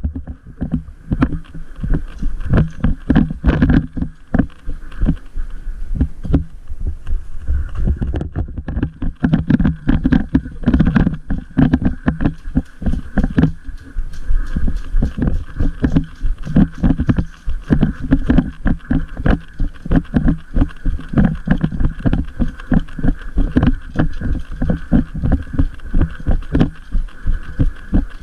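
A fast, irregular run of dull thumps and knocks that goes on without a break.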